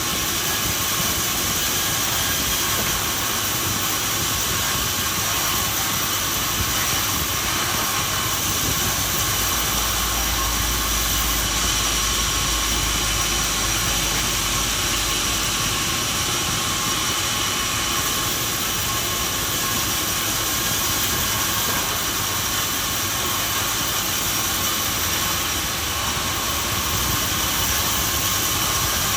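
Sawmill machinery running steadily: an even mechanical hiss and drone with a few constant high-pitched tones.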